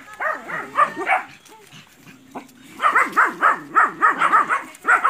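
Puppies barking: a few separate barks, then a quick run of about four barks a second in the second half.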